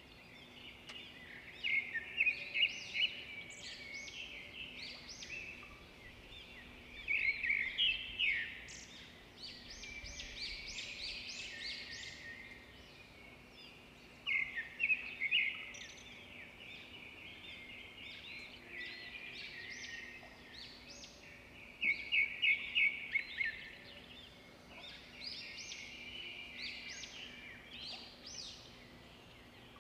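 Small birds chirping in repeated bursts of quick, high calls, with a faint steady hum underneath.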